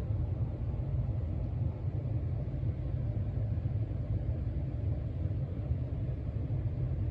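Casablanca Panama II ceiling fan running, a steady low rumble of moving air.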